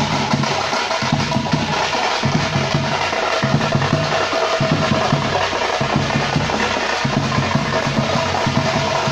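Tamil thappattai (parai) frame drums beaten with sticks by a walking troupe, a fast driving rhythm with a large drum thudding underneath.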